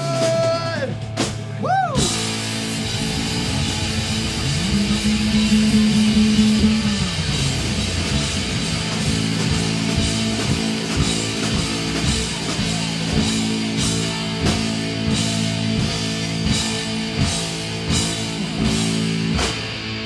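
Instrumental rock music: electric guitar chords and a drum kit, with no singing. A short swooping pitch near the start gives way to sustained chords, and the drum hits become more prominent in the second half.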